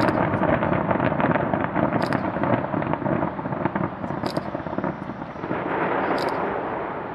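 Aerial fireworks crackling: a dense, continuous patter of many small crackling stars bursting, slowly fading toward the end.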